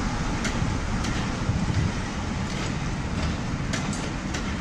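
Passenger coaches hauled by Class 45 'Peak' diesel locomotive 45108 rolling past close by: a steady low rumble of wheels on rail, with a few separate clicks as the wheels cross rail joints.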